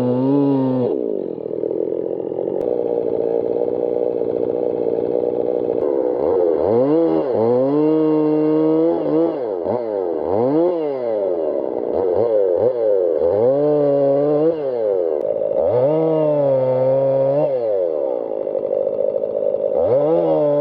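Husqvarna 55 two-stroke chainsaw running steadily for a few seconds, then revved up and let fall back repeatedly, about six times.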